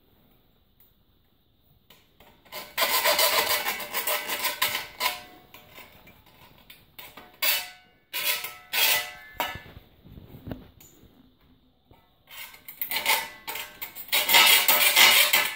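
Hand file rasping back and forth across the cut edge of a perforated stainless-steel cutlery holder, deburring a roughly cut opening. The strokes come in bursts: a run starting about two and a half seconds in, a few single strokes in the middle, and the loudest run near the end.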